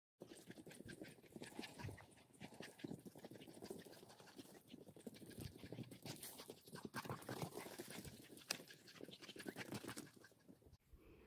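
Faint, scattered scuffs and crackles of dogs moving about on dry dirt and brush, a little busier toward the middle.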